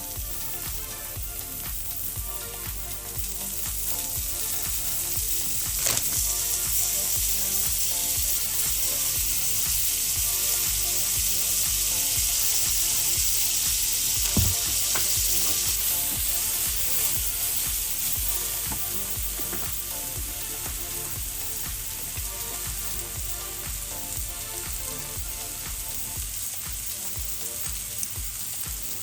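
Mushrooms sautéing in a skillet, sizzling steadily, louder through the middle, with two sharp knocks about six and fourteen seconds in.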